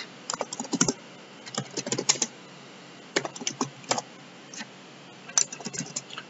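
Computer keyboard typing: irregular runs of quick keystrokes with short pauses between them, as code is typed and partly deleted.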